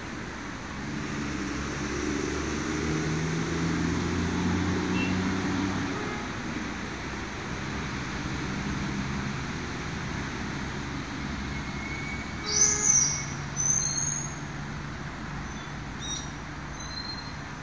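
Road traffic: a steady low engine rumble from passing vehicles, fullest in the first few seconds. A few short, high bird chirps stand out about twelve to fourteen seconds in.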